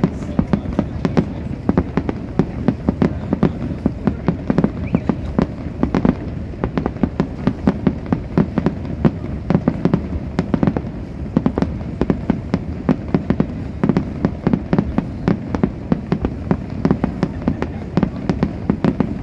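Fireworks display going off: a rapid, irregular series of bangs and cracks, several a second, over a steady low rumble.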